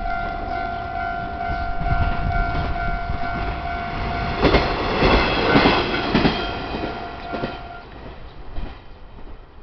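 Japanese level-crossing warning bell ringing steadily while a train passes over the crossing, its wheels clacking on the rails, loudest in the middle. The bell stops near the end as the train's noise fades.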